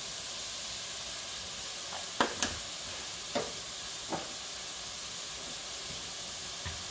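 Diced onions, carrots and garlic sizzling steadily in melted butter in a pot, with a few light knocks about two to four seconds in.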